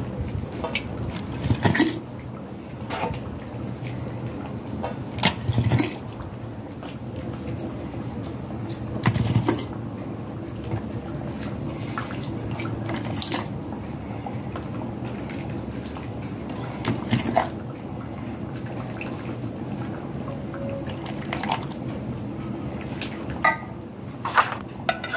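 Thick hot eggplant caviar being spooned through a plastic funnel into a glass jar: wet plops and pours of the sauce, with short knocks and clinks of the spoon against the funnel, jar and pot every few seconds over a steady low background hum.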